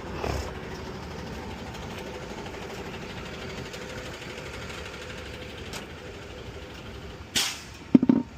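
Vehicle engine idling steadily, with a short sharp hiss about seven seconds in and a clunk just before the end.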